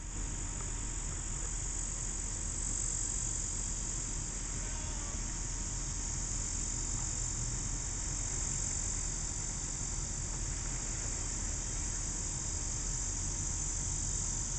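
Steady high-pitched insect chorus, with a low steady rumble underneath.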